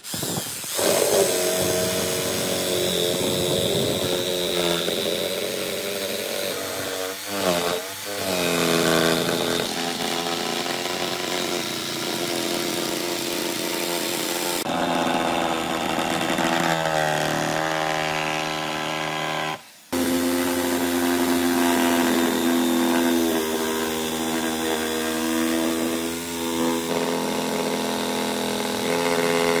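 Corded electric jigsaw cutting through wooden boards, its motor whine wavering and shifting in pitch as the blade bites into the wood. It cuts off briefly about twenty seconds in, then runs again.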